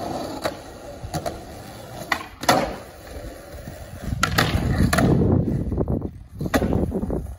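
Skateboard wheels rolling on concrete, broken by sharp wooden clacks of the board's tail popping and the board landing. A louder, rougher stretch about four seconds in is the board riding along a concrete ledge.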